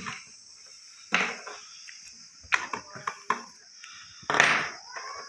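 Small plastic clicks and knocks from a cheap toy car's plastic body being handled while batteries are fitted into it: a few sharp taps, then a longer scraping knock about four seconds in, the loudest of them.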